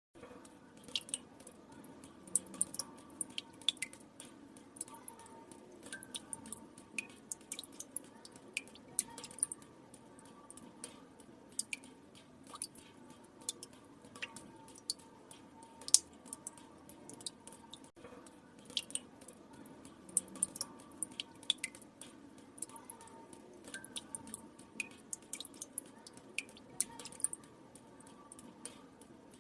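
Water drops falling irregularly into still water: many small drips and plinks, several a second, over a faint steady hiss, with one louder drop about halfway through.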